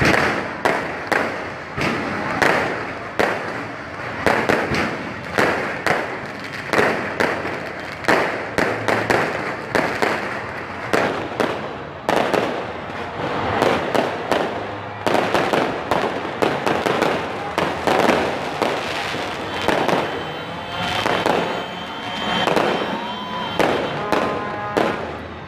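Fireworks bursting overhead in a continuous barrage, several sharp bangs and crackles a second. A thin steady high tone sounds faintly among the bursts from about twenty seconds in.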